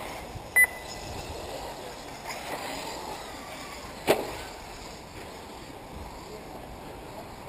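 A short, high electronic beep, sounding twice in quick succession, just over half a second in, and a single sharp knock about four seconds in, over steady background noise.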